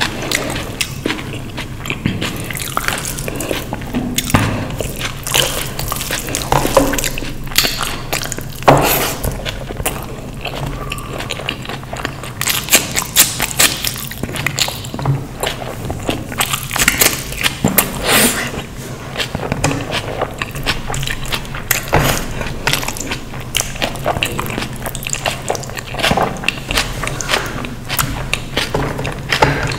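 Close-miked eating: a person chewing and biting food, with frequent crisp mouth clicks and small crunches over a steady low hum.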